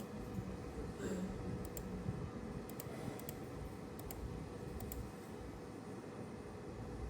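A few faint, scattered clicks over a low, steady background hum.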